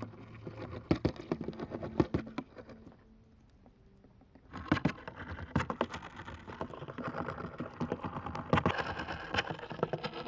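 Courtship vibration signals of a male wolf spider drumming on a leaf, picked up by a laser vibrometer and played as sound: rapid ticking and tapping in bursts. It pauses about three seconds in, then resumes denser, with several louder taps.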